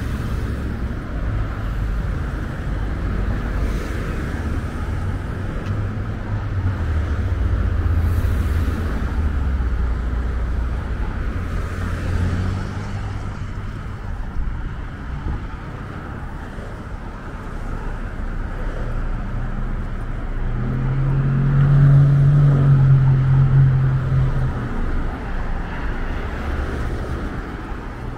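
Road traffic: cars and pickups driving past close by, with a continuous low engine hum and tyre noise. About three quarters of the way through, one vehicle's low, steady engine drone swells to the loudest point as it passes, then fades.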